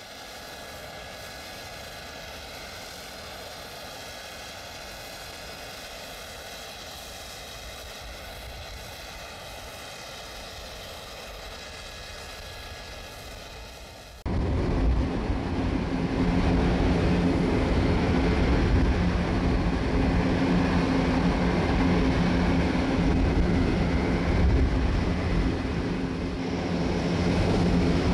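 Airbus A400M Atlas on the ground. For about the first half a quieter, steady high whine. Then an abrupt change to the much louder steady drone of its four turboprops and eight-bladed propellers, with a low propeller hum, as the aircraft taxis.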